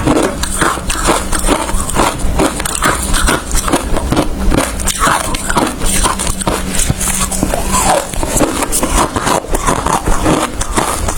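Ice being bitten and chewed close to the microphone: a dense, continuous run of crisp crunches.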